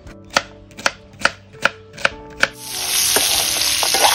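Kitchen knife chopping peeled black taro stems on a bamboo cutting board: six sharp chops, a little under half a second apart. About two and a half seconds in, a loud, steady hiss of food sizzling in hot oil takes over.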